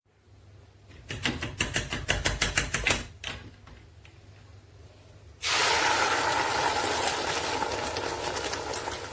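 A quick run of clicks and knocks, then about halfway through a sudden steady sizzle starts in a cooking pot and slowly eases off.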